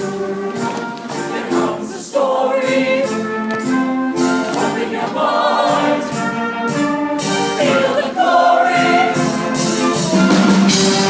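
Show choir singing an upbeat number together over a loud instrumental accompaniment with a steady beat.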